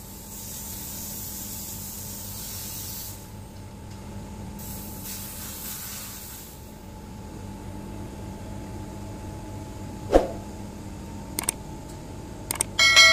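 Pressurised gas hissing out in two bursts, the first about three seconds long and the second about two, over a steady low machine hum. A sharp knock comes about ten seconds in, and metal clinks near the end, the last one ringing.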